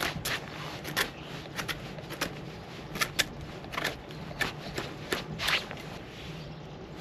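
A series of sharp wooden cracks and snaps with some scraping, irregular at about one or two a second: sticks being cut and worked by hand.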